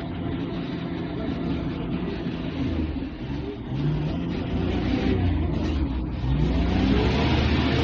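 Engine running, its revs rising and falling a couple of times, louder from about six seconds in.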